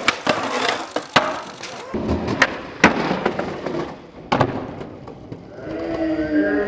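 Skateboard rolling and grinding along a brick ledge, with several sharp clacks of the board popping and landing. Near the end comes a long, drawn-out shout.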